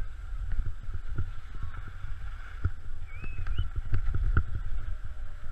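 Skis running over groomed snow with wind buffeting a body-worn camera's microphone during a downhill run: a steady low rumble broken by irregular thumps as the camera jolts over the snow.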